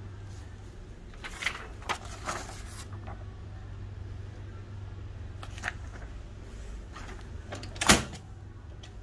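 The plastic top cover of an Oki MB562 printer is shut with one sharp snap near the end. Before it, about a second in, come handling rustles and a few light clicks, over a steady low hum.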